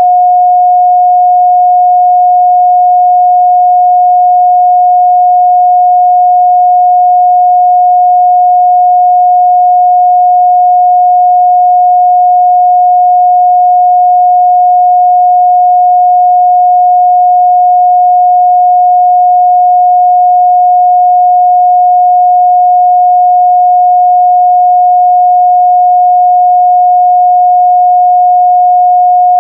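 Steady 721 Hz sine-wave test tone, a single pure mid-range pitch held unchanged at a constant loud level.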